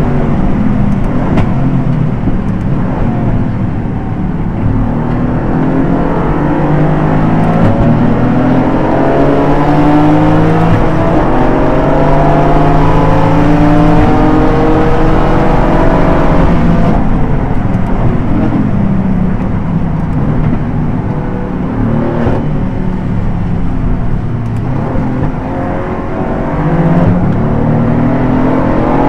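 Aston Martin GT4 race car's V8 engine at racing speed, revs climbing through the gears and dropping sharply under braking several times, heard from the cockpit.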